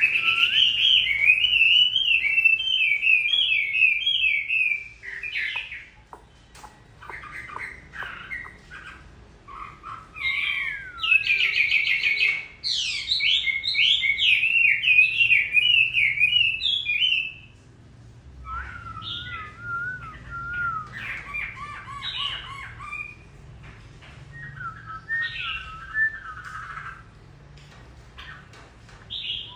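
Chinese hwamei singing: loud, rich whistled phrases full of quick rising and falling notes, broken by pauses with scattered short calls, and turning softer and more warbling in the last ten seconds.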